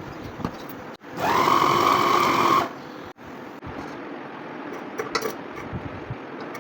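Electric grinder's motor run in one short burst of about a second and a half, a steady whine that comes up fast and then cuts off.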